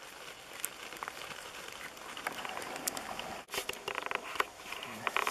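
Light rustling with a few scattered clicks. After an abrupt cut about three and a half seconds in, dry fallen leaves crackle and rustle in quick clusters as people move and kneel in the leaf litter.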